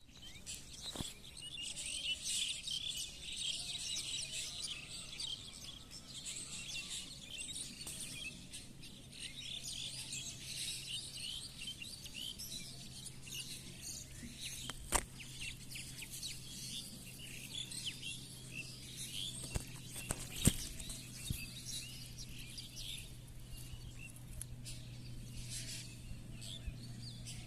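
Many small birds chirping and twittering together, busiest in the first dozen seconds and thinning after, over a steady low hum. Two sharp clicks stand out, one midway and one a few seconds later.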